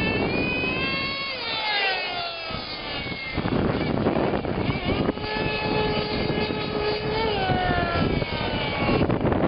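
Radio-controlled snowmobile's small motor whining as it drives over ice. Its pitch falls twice as it slows, with a steady stretch in between.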